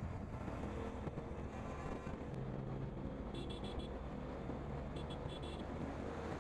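Motorcycle running steadily at highway speed, its engine drone mixed with wind rush on the handlebar-mounted camera. Two quick runs of short, high-pitched beeps come about three and five seconds in.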